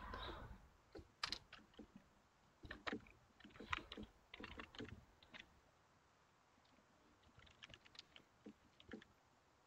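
Faint computer keyboard typing in scattered bursts of keystrokes, with a pause of about two seconds in the middle.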